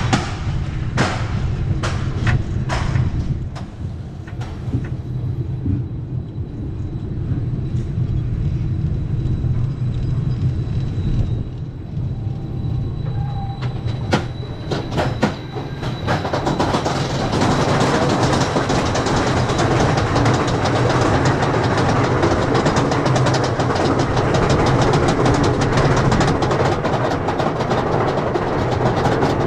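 Lightning Rod's wooden roller coaster train rolling slowly over wooden track with a low rumble and scattered clacks. About halfway through it engages the chain lift and climbs, with a louder, dense, rapid clatter from the lift chain.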